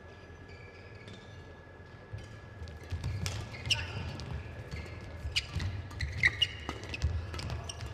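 Badminton rally: sharp racket hits on the shuttlecock, short high shoe squeaks on the court and low footfall thuds, starting about two to three seconds in.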